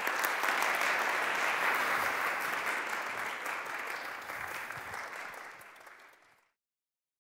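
Audience applauding, steady at first and thinning out, then cut off abruptly about six and a half seconds in.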